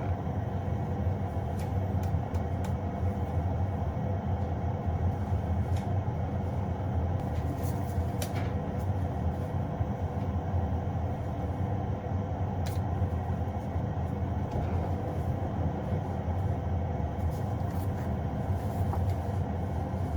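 Steady low mechanical rumble with a constant hum, starting abruptly and holding unchanged.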